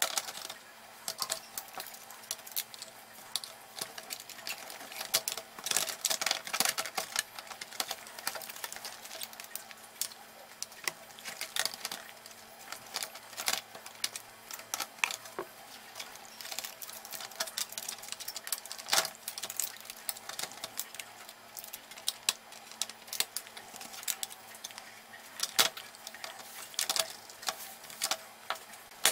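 Dense, irregular clicking and tapping of plastic and metal laptop parts being handled and snapped back together during reassembly, played back fast.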